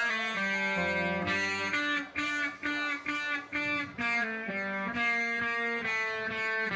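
Electric guitar playing a melodic line of single notes through an amplifier, about two notes a second.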